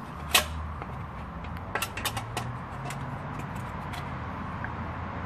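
Clicks and knocks of an electric grill's pedestal-stand parts being pushed together by hand: one sharp click about half a second in, then a quick run of clicks around two seconds in and a few fainter ticks after.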